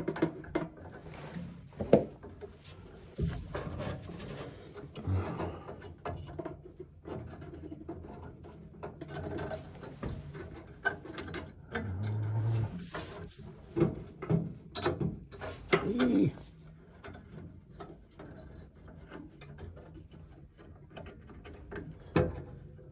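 Hands fitting a replacement hot surface ignitor into a gas furnace's burner assembly: irregular clicks, taps and rubbing of parts being handled.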